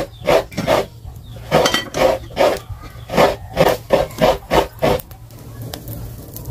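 A run of short knocks and clatters, two or three a second, from a metal cooking pot and its lid being set on a wood-fire stove and firewood being pushed in under it; the knocking stops about five seconds in.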